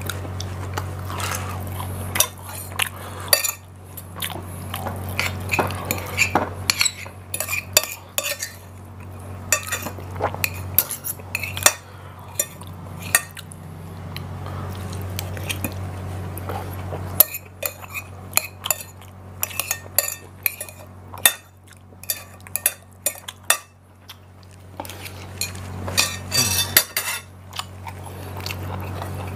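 Metal spoon and fork clinking and scraping against a ceramic plate while eating: irregular sharp clicks, with a few quieter stretches between them.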